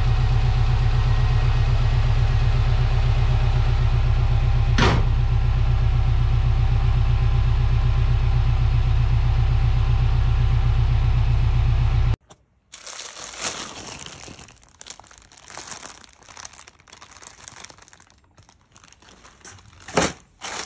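Subaru Forester's EJ20 turbo flat-four idling steadily after an oil change, with a single sharp knock about five seconds in as the bonnet is shut. The engine sound cuts off abruptly about twelve seconds in, giving way to quieter plastic rustling and a sharp knock near the end.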